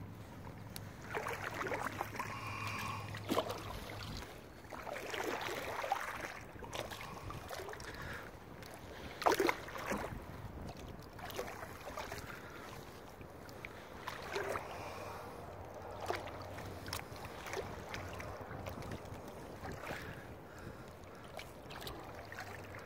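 Kayak paddle strokes dipping and splashing in the water every few seconds, with drips and water lapping at the hull. A low steady hum runs under it for the first few seconds and returns briefly later.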